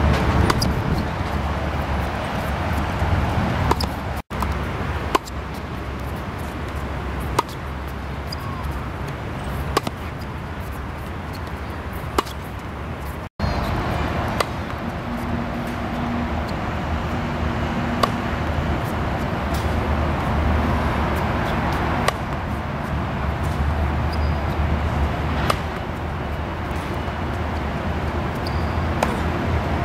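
Tennis ball struck by a racket, sharp pops every two to four seconds, over a steady low rumble of outdoor background noise.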